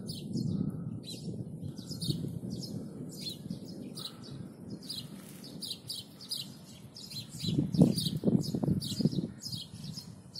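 Small birds chirping in rapid short calls over a low rumble of distant thunder from an approaching thunderstorm; the rumble swells and peaks about three-quarters of the way through.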